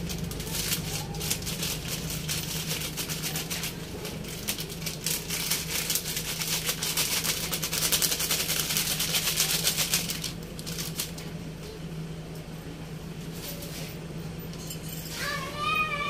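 Paper-and-plastic packet of breading mix crinkling and rattling as it is shaken and tapped over a plastic container, the dry powder hissing out; this stops about ten seconds in. A steady low hum runs underneath, and near the end a wavering pitched tone comes in.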